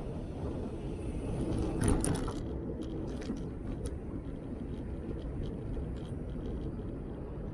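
Velomobile rolling along a cycle path: a steady low rumble of riding, with a short louder rattle about two seconds in and a few light clicks after it.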